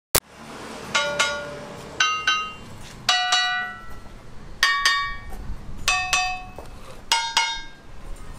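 Talempong batu, a stone lithophone of large natural stone slabs, struck with a hand-held stone. There are about six quick double strikes, roughly a second apart, each ringing with several clear bell-like tones that fade within about half a second. A sharp click comes at the very start.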